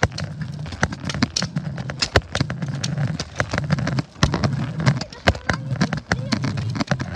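Footsteps on pavement, about three irregular steps a second, over low rumble and knocks from a jostled handheld camera microphone.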